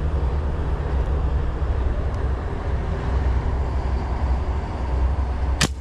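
Steady low rumbling background noise, then near the end a single sharp snap as the fishing gun is fired.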